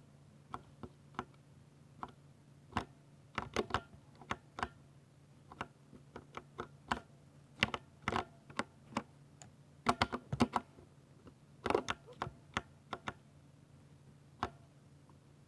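Keystrokes on a Ducky 60% mechanical keyboard with silver switches. The presses come irregularly, some singly and some in quick runs of several keys.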